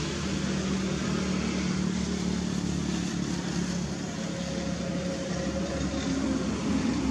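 An engine running steadily with a low hum; its pitch shifts slightly higher about six seconds in.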